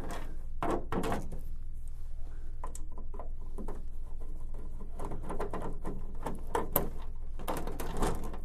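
A screwdriver backing T15 Torx screws out of an HP Designjet printer's plastic top cover: several bursts of small clicks and scrapes, metal on plastic, over a steady low hum.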